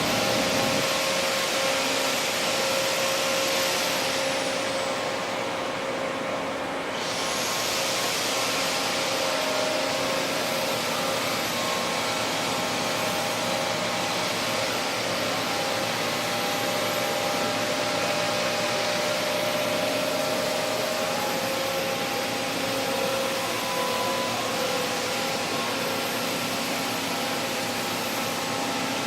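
HB150 CNC table-type horizontal boring machine running steadily: a continuous mechanical hiss with several steady whining tones from its drives. The high part of the hiss dips for a couple of seconds about five seconds in.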